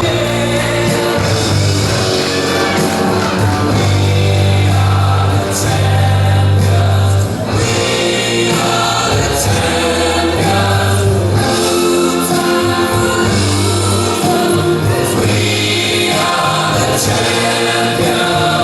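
Loud music with singing voices over a heavy bass line.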